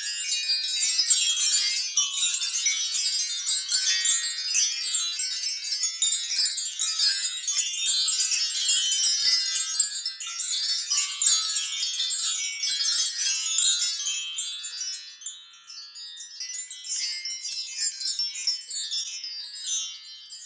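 Cartoon sound effect: a dense, continuous shower of high tinkling chime tones, many overlapping. It thins out and drops in level about fifteen seconds in, then fades away near the end.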